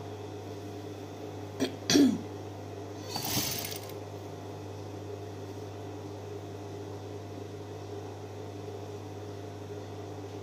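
Steady hum of an industrial sewing machine's motor running idle while the fabric is being set under the foot. Two brief sounds about two seconds in, the second falling in pitch, and a short hiss about a second later.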